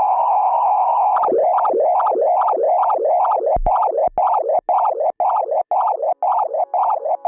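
Live electronic music: a steady synthesizer tone that about a second in is chopped into an even pulse, a little under four a second, each pulse dipping and rising in pitch. Two brief low thumps come midway, and a lower held tone joins near the end.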